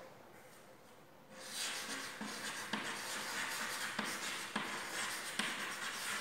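Chalk writing on a chalkboard: a run of short scratching strokes that starts about a second and a half in, as a word is written out.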